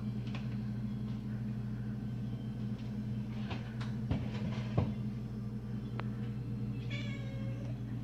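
Steady low electrical hum from laptop speakers being plugged in and set up, with small clicks and knocks from handling them. About seven seconds in there is a brief high, wavering cry that falls in pitch.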